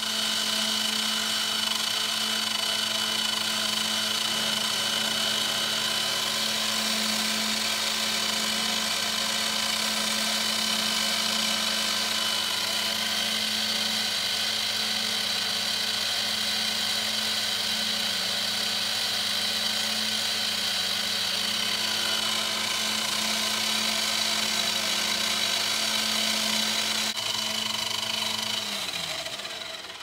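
Benchtop mini milling machine running steadily with its spindle at about 2,900 rpm while an end mill cuts grooves into a metal plate: a constant motor hum with a high whine. Near the end the spindle is switched off, winding down with falling pitch until it stops.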